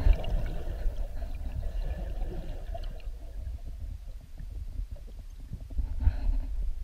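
Muffled underwater noise picked up by a submerged camera: an irregular low rumble of water moving around the housing. It eases off around the middle and strengthens again near the end.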